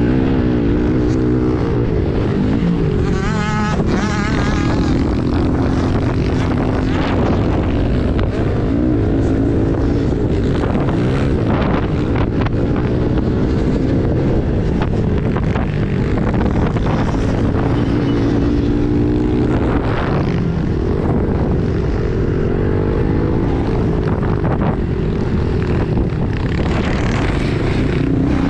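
Small single-cylinder four-stroke pit bike engine heard from an on-board camera while it is ridden hard. The pitch climbs and drops again and again with the throttle.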